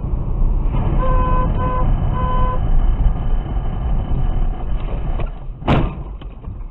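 A car horn honks three times, two short toots and then a longer one, over the loud, steady rumble of a car driving on a snowy road. About six seconds in comes a single sharp thump as the car skids off the road into the snow.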